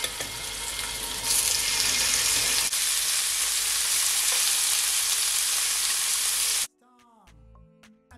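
Pieces of steak frying in olive oil in a hot skillet, a steady loud sizzle that gets louder about a second in. It cuts off suddenly near the end, leaving faint background music.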